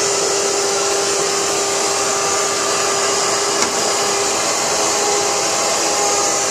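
Loud, steady rushing air noise with a constant hum underneath.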